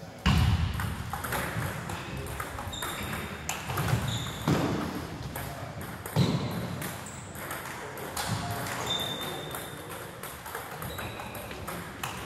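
Table tennis balls clicking and pinging off bats and tables in an irregular, overlapping run of sharp hits, more than a single rally would make.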